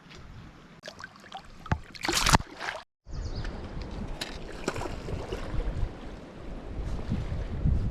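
Wind buffeting the microphone and water lapping against a small boat, with scattered small clicks and knocks, and a loud rustling burst a little after two seconds. The sound cuts out completely for a moment about three seconds in.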